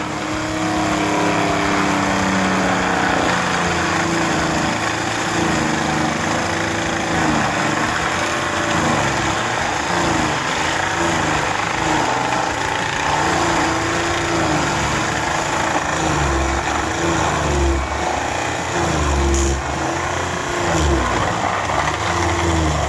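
Heavy machine's engine running, its pitch rising and falling as the load changes, with a deeper low rumble joining about two-thirds of the way through.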